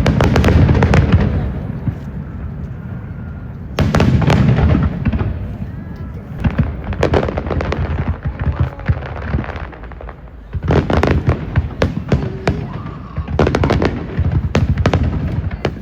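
Aerial fireworks bursting in rapid volleys of booms and crackles. They come in about five clusters with short lulls between.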